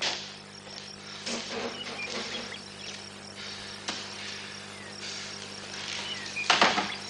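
Crickets chirping steadily in the background, with a few knocks and thumps from someone moving about a room; the loudest knocks come near the end.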